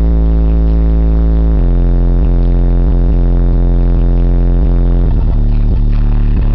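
Bass-heavy music played very loud through a car stereo's two Treo 10-inch subwoofers driven by a Zapco 1000-watt amplifier, heard inside the truck's cab. Long, deep bass notes change pitch about a second and a half in, and a pulsing beat starts about five seconds in.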